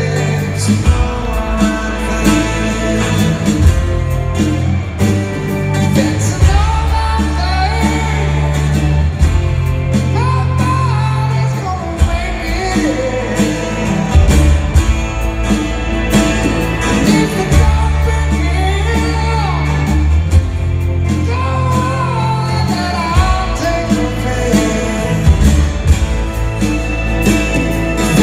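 Live rock band playing a song, with a male lead vocal over sustained bass notes and guitar, heard from the audience in an arena.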